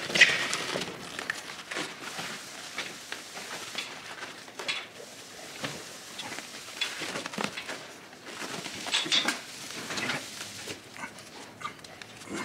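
Cohesive bandage wrap being unrolled and wound round a cow's foot, an irregular crackling and rustling with scattered sharper clicks and knocks.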